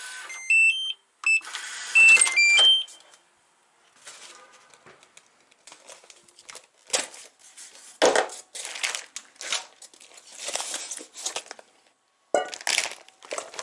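Digital door lock beeping: two runs of short electronic tones stepping in pitch in the first three seconds, the loudest sounds here. Then irregular rustling, scraping and crinkling as a styrofoam box and plastic packaging are handled.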